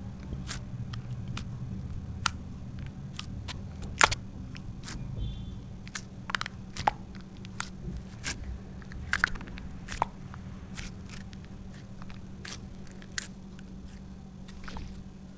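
Glossy slime clicking and popping as fingers poke and press into it: irregular sharp pops, the loudest about four seconds in, thinning out over the last few seconds. A steady low hum runs underneath.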